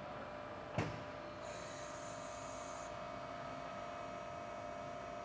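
Hydraulic system of a corn head's sweeper-arm cylinders running with a steady hum while the air is bled from the cylinders. A single sharp clunk comes about a second in, then a high hiss for about a second and a half over a steady whine.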